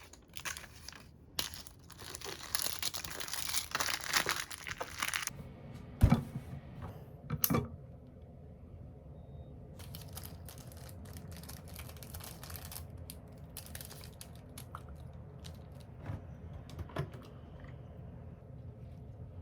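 Close handling noises: crinkling and rustling mixed with quick clicks, two sharper thumps about six and seven and a half seconds in, then lighter scattered clicking.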